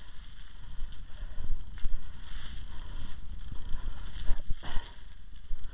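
Uneven low rumble of wind and handling noise on the camera's microphone as it is moved about, with a few irregular rustles and scuffs.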